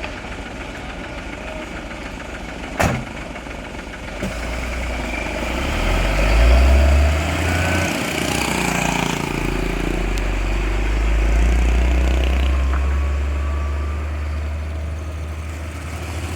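Heavy diesel truck engine running, with a single sharp knock about three seconds in. From about four seconds the deep engine rumble builds up and stays loud.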